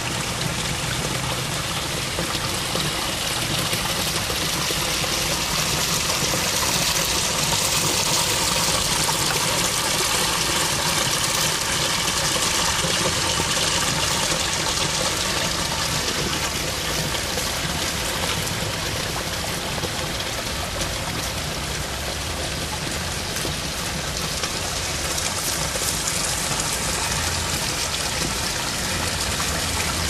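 Water of a pondless waterfall running steadily and trickling over rocks.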